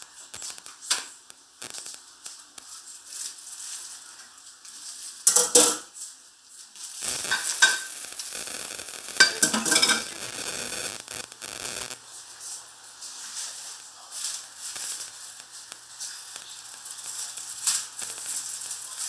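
Kitchen food-prep sounds: scattered clicks and clatter of dishes and utensils, with a steady hiss for about five seconds in the middle that cuts off abruptly.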